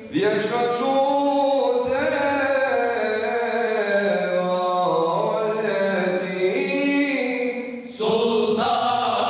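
Unaccompanied male voice chanting a melismatic line of a Bosnian mevlud (mawlid), the pitch bending and ornamented on long held notes. After a short break about eight seconds in, a new phrase starts with more voices joining.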